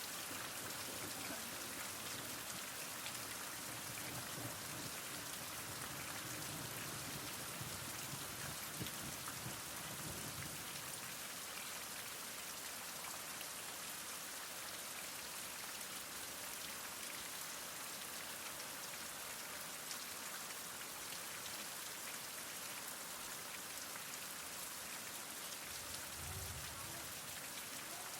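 Steady heavy rain, a dense even hiss of drops falling on surfaces, with a few faint low rumbles in the first part and a brief low thump near the end.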